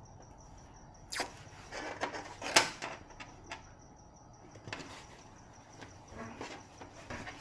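Irregular clicks and knocks, a handful of them, the loudest about two and a half seconds in, over a faint steady high-pitched tone.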